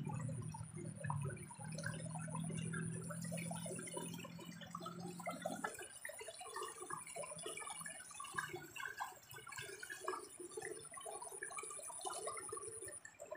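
Water splashing and dripping in many small, irregular sounds, with a low hum that stops about halfway through.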